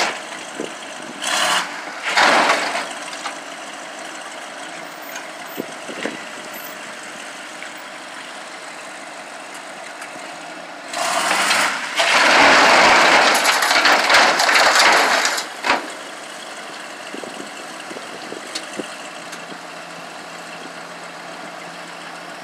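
Junk car frame being dragged off a tow truck's steel flatbed by a Daewoo 340LC-V excavator's grapple, over the steady running of heavy engines. About halfway through, a loud harsh scraping of metal on metal lasts about four seconds.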